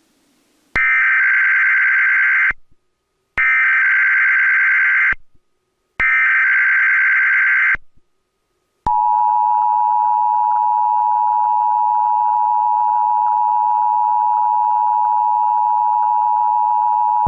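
Emergency Alert System header: three short bursts of SAME digital data tones, each under two seconds with a short gap between. Then the steady two-tone EAS attention signal (853 and 960 Hz) is held for about eight seconds. This is the start of a Required Monthly Test.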